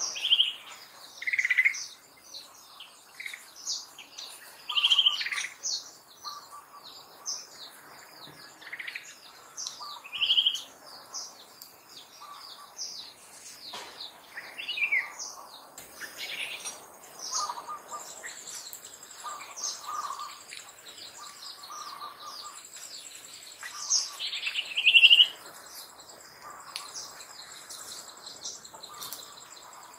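Birds chirping and calling in many short notes, several louder nearby calls standing out. A thin, steady high-pitched trill joins a little past halfway.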